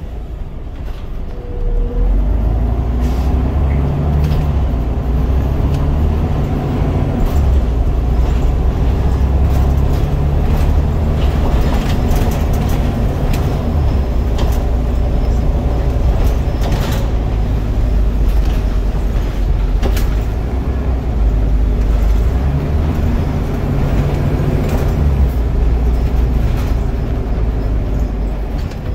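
Onboard sound of a Scania N94UD double-decker bus on the move: its rear-mounted Scania DC9 9-litre Euro 3 diesel pulls away about two seconds in and runs under load, the engine note stepping up and down several times as the ZF Ecomat automatic gearbox changes gear. Short rattles and clicks from the bus body and fittings are heard throughout.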